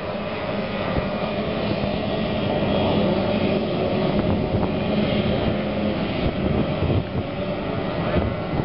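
A pack of racing powerboats running flat out together, their engines blending into one steady drone.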